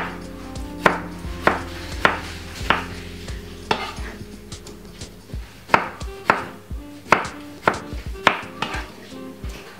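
Kitchen knife chopping a tomato on a wooden chopping board: a sharp knock on the board about every half second, pausing briefly around the middle.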